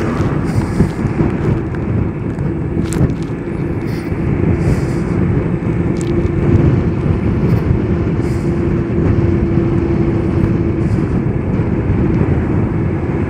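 Steady rumble of wind and road noise from riding a Zero DSR electric motorcycle, with a faint steady hum through the middle.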